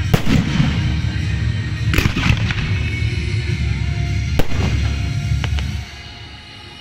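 Aerial firework shells bursting: three sharp bangs about two seconds apart and a smaller one later, over music. The sound drops off sharply near the end.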